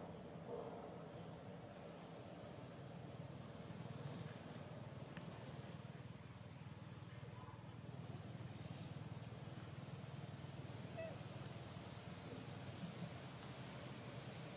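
Faint chorus of insects: a steady high buzz, with a chirp that repeats every few seconds, over a low steady hum.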